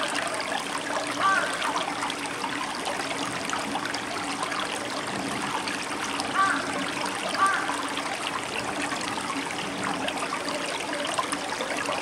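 Shallow stream running over flat stones and rocks: a steady rush with trickling. A few short louder sounds with a rising-then-falling pitch come through it, about a second in and again around six and seven seconds in.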